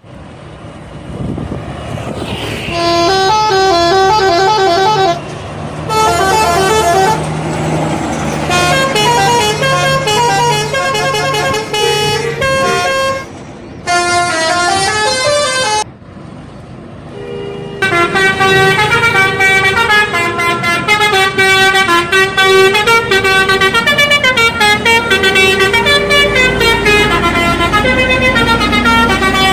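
Indonesian bus telolet horns playing quick multi-note tunes, loud, in several bursts with short breaks, then one long unbroken run through the second half. A steady low rumble sits underneath in the first half.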